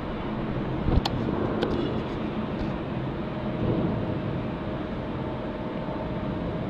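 Wind buffeting the microphone over the steady rush of churning tsunami surge water, with a low hum underneath. A sharp knock comes about a second in and a click shortly after.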